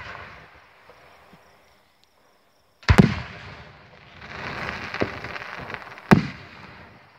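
Aerial firework shells bursting overhead: a pair of sharp bangs about three seconds in, a spell of hissing with a weaker bang, then another loud bang about six seconds in, each bang trailing off in an echo.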